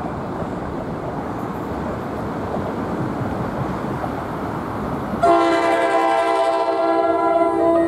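An NJ Transit ALP-46-series electric locomotive, approaching the station, sounds its Nathan K5LA five-chime horn in one long steady blast starting about five seconds in. Before the horn there is a steady rumbling noise.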